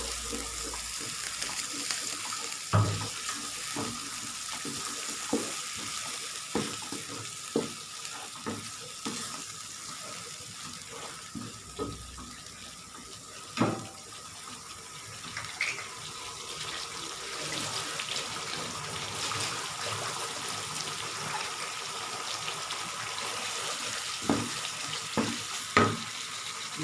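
Curry paste thinned with a little water bubbling and sizzling in a pan, stirred with a spatula that knocks against the pan now and then.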